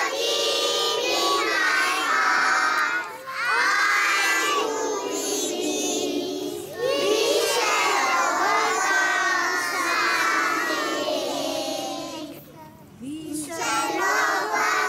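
A large group of young children singing a prayer together in unison, line by line, with short breaks between phrases and a longer pause a little before the end.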